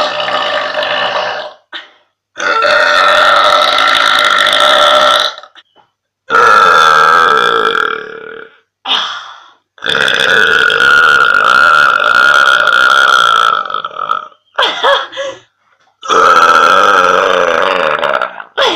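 A young woman burping loudly again and again: a string of long, drawn-out burps, the longest about four seconds, with a few short ones in between.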